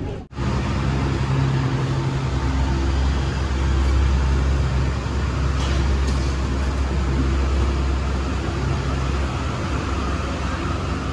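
Bus engine running with a steady low hum and road noise, heard from inside the moving bus's cabin. The sound cuts out for a moment just after the start, and the deep hum eases about nine seconds in.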